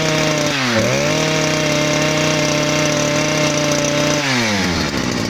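Petrol drill's two-stroke engine revved and held at high speed. The revs dip and pick up again about half a second in, then fall back toward idle near the end as the throttle is let off.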